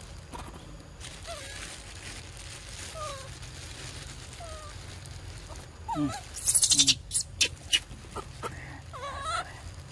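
Young macaques giving short gliding squeak-like calls every second or two. A loud burst of crackling and clicking comes about six seconds in and lasts a second or so.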